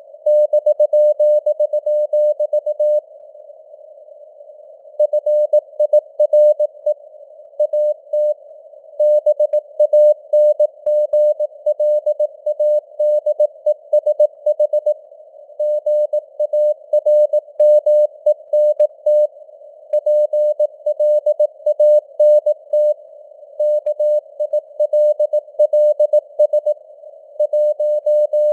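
Morse code at 18 words per minute: a single steady mid-pitched tone keyed on and off in dots and dashes, inside a narrow band of simulated radio noise, like a CW signal heard on a receiver. There is a pause of about two seconds, about three seconds in.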